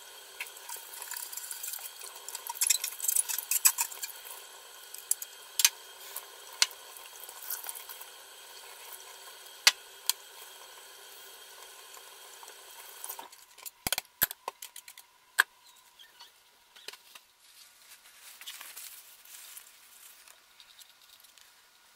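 Kitchen tap running into a stainless-steel sink, with scattered clinks and knocks as a brush and small parts are rinsed. About 13 seconds in the running water stops, followed by a few sharp clicks and soft rustling.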